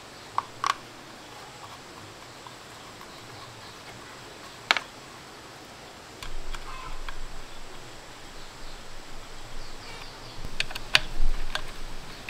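Small hard objects being handled: a few isolated sharp clicks, then from about six seconds in, irregular clattering and rustling with a burst of louder clicks near the end.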